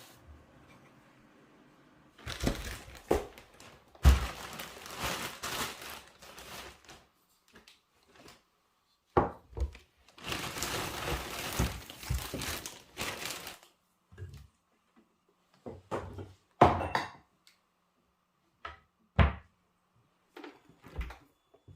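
Objects being handled: rustling in two longer stretches, with separate knocks and thuds as things are set down, the loudest a few seconds apart in the second half.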